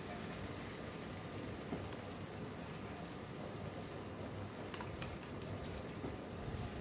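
Cooled sugar syrup hissing as it is spooned onto hot, freshly baked baklava, a steady sizzle that comes from cool syrup meeting the hot buttered pastry. A couple of faint clicks come about five seconds in.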